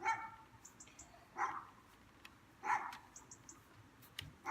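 A dog barking: four short barks spaced about a second and a half apart.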